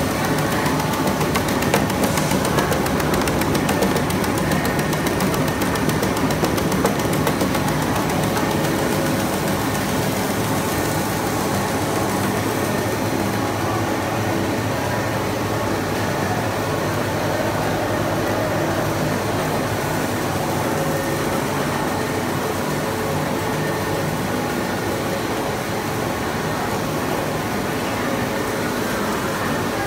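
Snack-food extrusion line running: a steady machine hum of motors and conveyors under dense mechanical noise, with a rapid clicking in the first few seconds that then eases off slightly.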